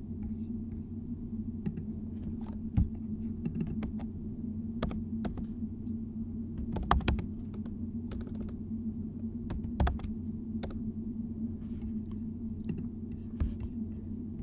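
Computer keyboard keystrokes, scattered and uneven, with a few louder key presses, as text in a document class line is edited. A steady low hum runs underneath.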